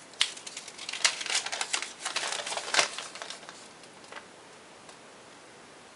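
Paper note being unfolded and handled: a run of crinkling rustles and sharp paper clicks that stops about three seconds in.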